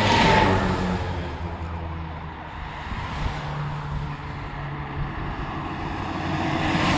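Military convoy vehicles driving past on a road. An eight-wheeled Stryker armoured vehicle passes close by right at the start, its diesel engine and tyres at their loudest, with the engine pitch dropping as it goes by. The sound eases off, then swells again near the end as a Humvee comes past.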